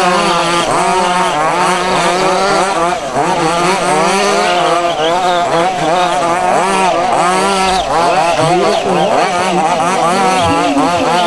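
Several 1:5-scale RC buggies' small two-stroke petrol engines running together, their overlapping pitches constantly rising and falling as they rev up and back off.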